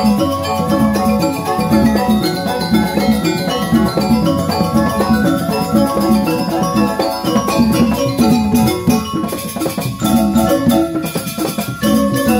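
Balinese gamelan playing joged dance music: mallet-struck keyed instruments in dense, rapid runs of notes over two kendang hand drums.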